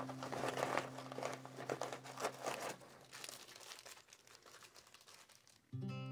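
Crinkling and rustling of plastic packaging as a foil emergency rescue blanket in its clear zip bag is pulled from a fabric pouch and handled. The crinkling is dense for about three seconds, then sparse and faint.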